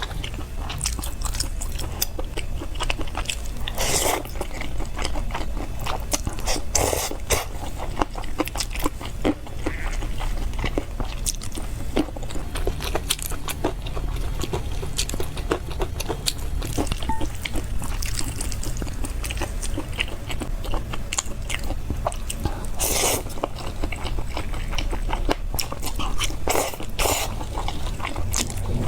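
Close-miked eating: a person chewing and biting food with wet mouth sounds and crackly crunches, a few louder bites standing out, over a faint steady low hum.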